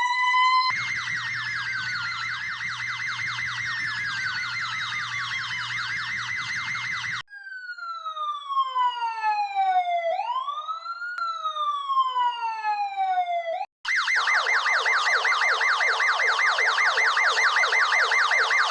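A run of different emergency-vehicle sirens, one after another. About a second in, a fast yelp starts with a slow wail rising and falling over it. Around seven seconds in it gives way to long, slowly falling tones, and just before fourteen seconds, after a brief break, a fast warbling siren takes over.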